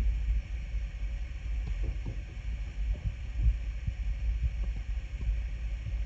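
Kitten purring while her head is scratched: a steady low rumble.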